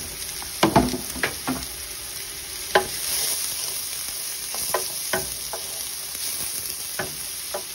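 Chopped onion, garlic and celery sizzling in oil in a metal roasting tin, with a wooden spoon knocking and scraping against the tin as it stirs them. Steady sizzle under a dozen or so sharp knocks, clustered about a second in.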